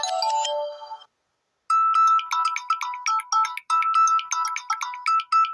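Samsung Galaxy A04 built-in ringtones: the last notes of one ringtone fade out in the first second. After a short gap the next ringtone starts, a quick run of short, bright electronic notes hopping between a few pitches, which stops abruptly near the end.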